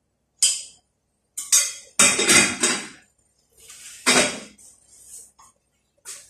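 Kitchen clatter: a handful of sudden clanks of metal pots or dishes being handled, loudest in a cluster near the middle.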